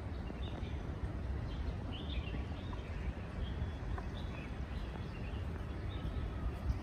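Small birds chirping in short, scattered calls over a steady low outdoor rumble.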